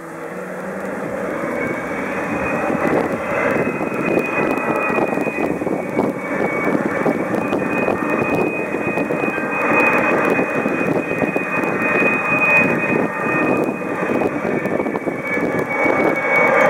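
Boeing 777-300ER's two GE90 turbofans at taxi power: a steady high whine over a broad rushing rumble, growing louder over the first few seconds as the airliner taxis closer.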